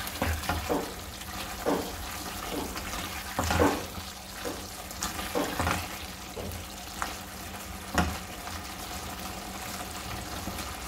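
Silicone spatula stirring and scraping sliced potatoes around a metal pot in irregular strokes, the loudest about three and a half and eight seconds in, over the steady bubbling of the masala as its water cooks off.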